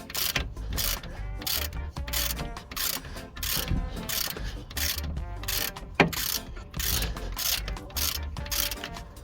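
Hand socket ratchet tightening a bolt on a front wheel hub assembly: repeated back-and-forth strokes of rapid pawl clicking, about two or three a second, with one sharp knock about six seconds in.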